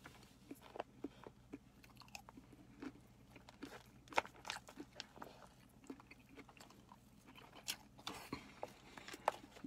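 Faint chewing and crunching of a mouthful of raw salad vegetables, in scattered small crunches and clicks, with a fork now and then scraping or tapping the plastic tub.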